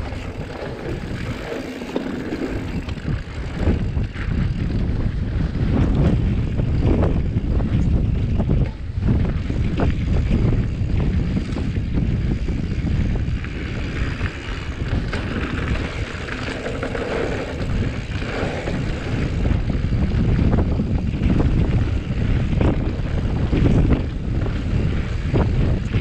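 Mountain bike riding downhill over a loose gravel trail: tyres crunching over stones and the bike rattling and knocking over bumps, under heavy wind buffeting on the action camera's microphone.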